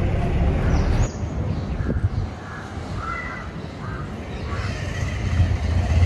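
Crows cawing, a run of short calls in the middle of the stretch, over a steady low rumble.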